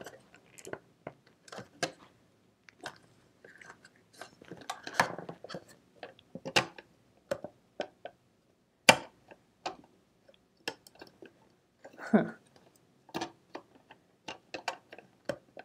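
Scattered clicks, taps and scrapes of fingers prying at the parts inside a 1970s Kenmore sewing machine, working a piece loose. The sharpest clicks come about nine and twelve seconds in.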